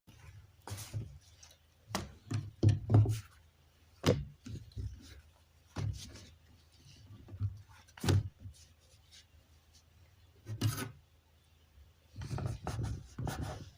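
Irregular knocks, taps and rubbing from hands-on kitchen work on a wooden board, with a dense cluster of strokes near the end.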